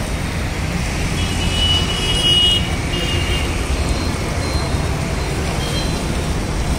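Steady low traffic rumble along with the even sizzle of mirchi bajji (battered green chillies) deep-frying in a large wok of hot oil.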